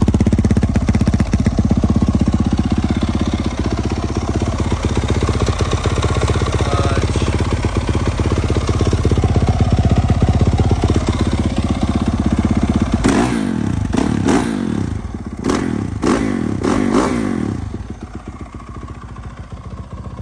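2015 Yamaha YZ450F's fuel-injected single-cylinder four-stroke engine idling steadily. A little past halfway it is revved in several quick throttle blips, then settles back to a quieter idle.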